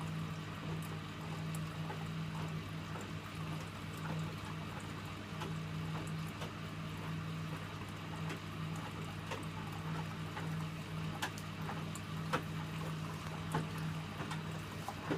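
Electrolux W455H commercial washing machine running mid-wash on a Warm 60 cycle: water swishing in the drum over a steady low hum.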